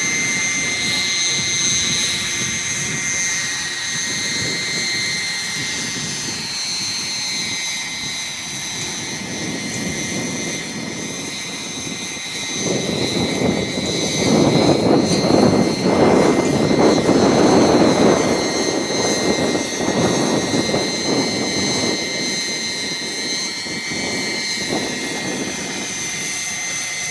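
Radio-controlled scale model of an Aérospatiale SA 315B Lama helicopter in flight: a steady high-pitched whine over rotor noise that grows much louder about halfway through and then eases off.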